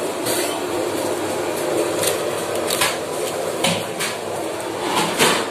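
Clear plastic food boxes clicking and crackling as food is set into them by hand: several sharp clicks, the loudest near the end, over a steady background hum.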